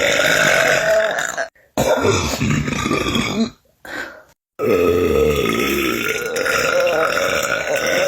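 A person burping loudly, several long burps one after another with short breaks between them: a short burp comes around the middle, then a very long burp lasts about four seconds.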